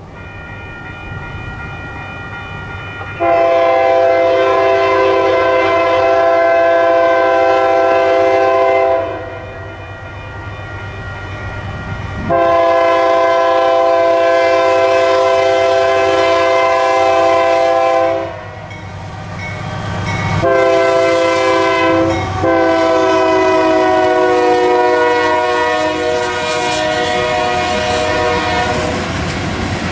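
Multi-chime diesel locomotive air horn sounding long, long, short, long, the standard signal for a grade crossing, over the rumble of an approaching freight train. The horn's pitch drops during the final long blast as the locomotive passes.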